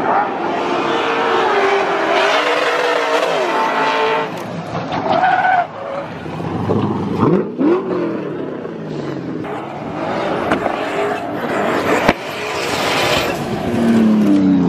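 Drift cars sliding in tyre smoke: engines revving up and down hard while the tyres squeal and skid. There is one sharp pop about twelve seconds in.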